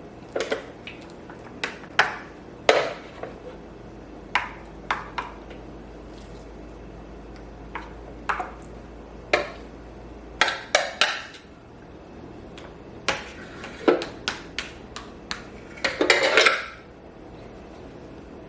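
Kitchen dishes and utensils being handled: irregular sharp clinks and knocks, some ringing briefly, with a short clatter near the end. A faint low hum runs underneath for the first half and then stops.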